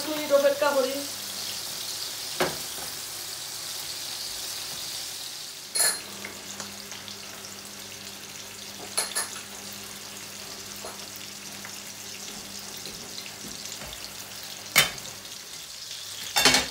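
Boal fish steaks shallow-frying in hot oil in a frying pan, giving a steady sizzle that is stronger in the first few seconds, over a low steady hum. About five short, sharp clicks of utensils or cookware stand out along the way.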